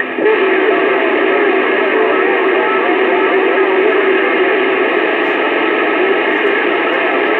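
CB radio receiving skip through its speaker: a steady wash of static with several faint, garbled transmissions overlapping underneath, and a steady whistle for the first few seconds.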